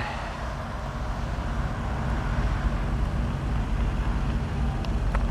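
Car engine running with a steady low hum and road noise, heard from inside the car. A few faint clicks near the end.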